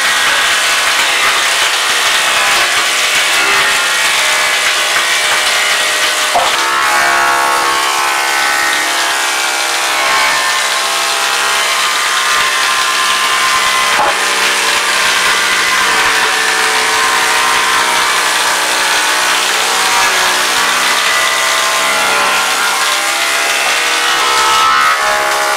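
Electric thickness planer running steadily, its cutter head whining as wooden planks are fed through and planed, the pitch shifting a few times as boards go through.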